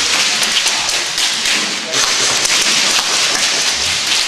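Airsoft gunfire: irregular rapid taps and clicks of shots and plastic BBs striking plywood walls, over a steady hiss.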